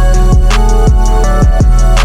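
Background music with a steady drum beat: deep bass drum hits that drop in pitch, over sustained instrumental tones and regular high ticks.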